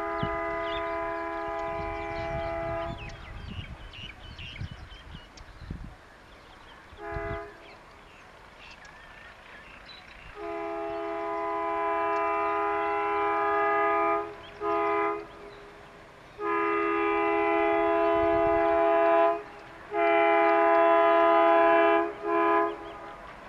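Air horn of a WDG 3A diesel locomotive sounding as it approaches. It gives a long blast, a short toot about seven seconds in, then a run of long blasts with short toots between them, growing louder toward the end.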